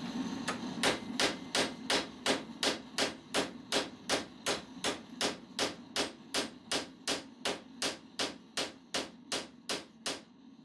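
Steady, even hammer blows on a metal rod clamped in a bench vise, about three strikes a second, stopping shortly before the end.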